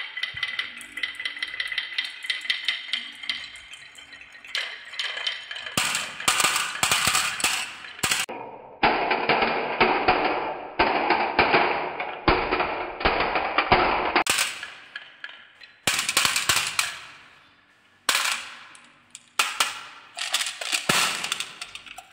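Glass marbles rolling down a wooden marble run with wavy tracks, rattling over the bumps in quick clicks and clacking against one another as they pile into a plastic toy dump-truck bed. The clatter comes in several runs of dense clicks and knocks, with short quieter gaps between them.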